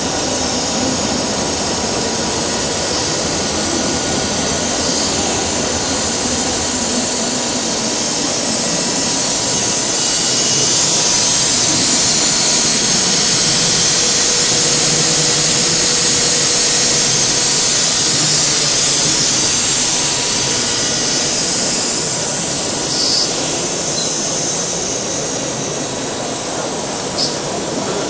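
Mechanical stamping press running a progressive die continuously at speed: a steady, loud mechanical din with hiss and no separate strokes to be heard. A few light clicks near the end.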